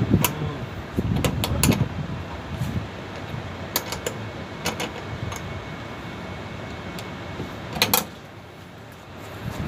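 Scattered metallic clicks and knocks of a sheet-metal air duct and its volume damper being handled and pried at, over a steady background hum. A sharper clatter comes near the end.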